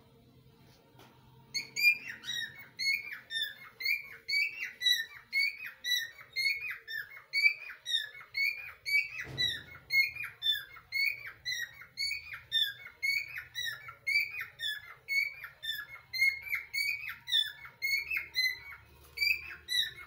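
Indian ringneck parakeets calling: a rapid, regular run of short chirping calls, a few a second, starting about a second and a half in. A short knock about nine seconds in.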